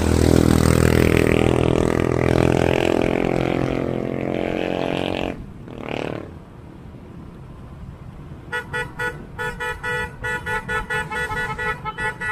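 Vehicle horns blaring together in a long, loud chord for about five seconds. After a brief whoosh, quicker horn toots repeat at about three a second.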